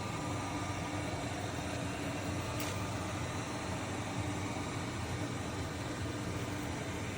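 iRobot Roomba 105 robot vacuum running while cleaning: a steady whir of its suction motor and brushes, with a brief click about two and a half seconds in.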